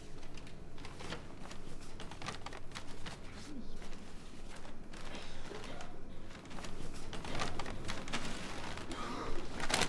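Irregular rustling and handling sounds of clothing and things being moved about, heard over the steady low rumble inside a moving vehicle.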